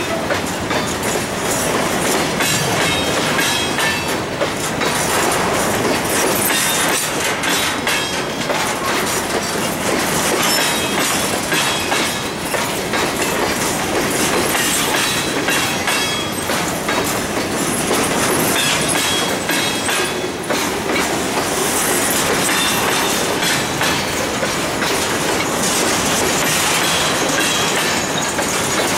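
Empty covered hopper cars of a grain train rolling past close by: steel wheels clicking and clattering over the rail joints in a steady stream, with short high squeals from the wheels now and then.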